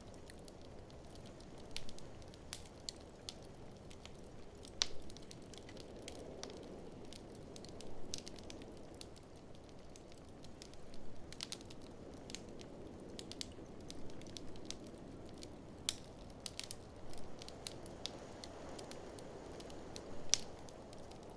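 Wood fire crackling in an open fireplace, with irregular sharp pops and snaps, the strongest about five seconds in. Underneath runs a low, steady rush that swells and eases every few seconds, which the video sets as blizzard wind.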